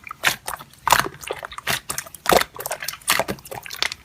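Slime being squished and pressed by hand, making a run of irregular wet clicks and pops.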